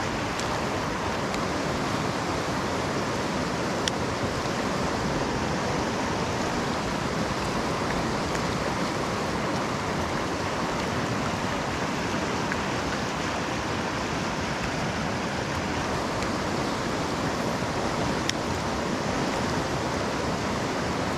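Fast-flowing river water rushing over a shallow rocky bed: a steady, unbroken wash of water noise.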